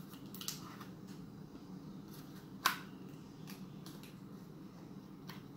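Fingers handling and picking at a small cardboard-and-plastic toy package: a few faint rustles and clicks, with one sharper click about two and a half seconds in, over a low steady room hum.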